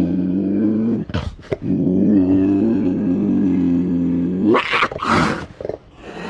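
Cougar growling: a long low growl, broken about a second in by two short sharp snarls, then a second long growl that rises into a louder, harsher snarl near the end.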